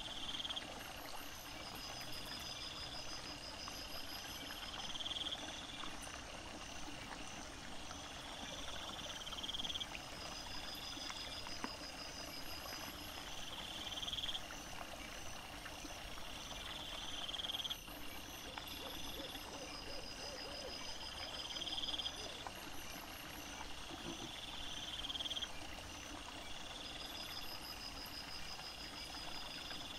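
Night insects chirping in chorus: pulsed buzzes about a second long, repeating roughly every two seconds, with faster high trills over a steady hiss.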